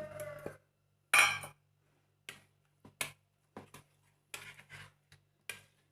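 Kitchen utensils knocking and clinking against a bowl as par-boiled elephant foot yam pieces are added to a spiced batter and mixed: one louder knock about a second in, then a string of short, lighter clicks.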